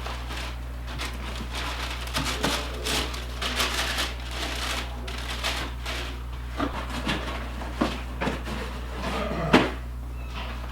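Shoes and a cardboard shoebox being handled: a run of rustles, taps and light knocks, ending in one sharper knock near the end.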